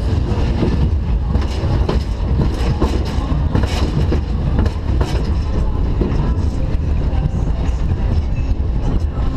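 Fairground ride in motion, heard from a seat aboard: a steady low rumble with rattling and occasional knocks.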